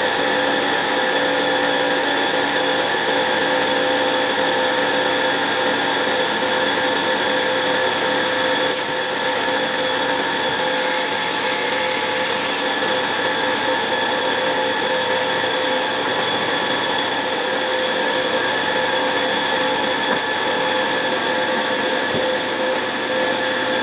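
A 25-litre air compressor running steadily, its motor giving a constant whine over a hiss. A brighter hiss joins about nine seconds in and lasts some three seconds.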